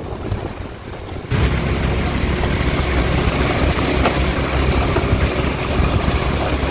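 Loud, steady rumble of motor vehicle noise on a road, starting abruptly about a second in.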